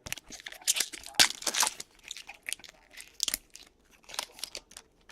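Trading cards and a foil pack wrapper being handled: irregular crinkling and rustling bursts, loudest about a second in.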